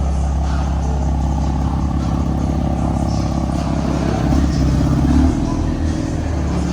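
BMW F80 M3's twin-turbo inline-six running with aftermarket downpipes, a decatted exhaust and a stage 2 Bootmod3 tune: a loud, steady low drone that swells about five seconds in and then eases back.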